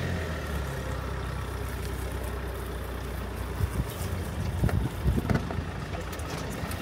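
Safari game-drive vehicle's engine idling with a steady low hum; from about halfway it turns rougher, with scattered knocks and rattles.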